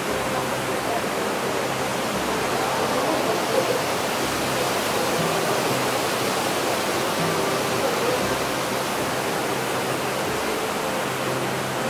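Steady rush of a waterfall in a stone gorge.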